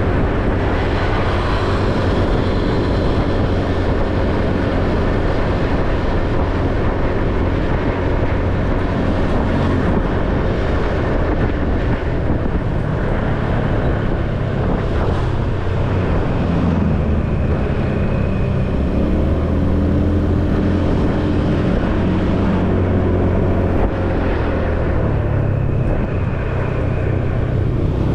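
Motorcycle riding along a road: steady wind and road noise with the engine running. About two thirds of the way in, an engine's pitch dips and rises again.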